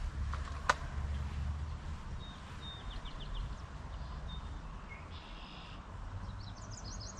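Small birds chirping in short series of high notes, over a low steady rumble. A single sharp click comes just under a second in.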